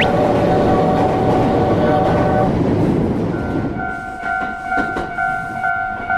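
A train runs past with a loud rumble that dies away about halfway through. A level-crossing alarm rings throughout, its steady two-tone ding repeating evenly once the train noise has gone. There is a brief rising whistle right at the start.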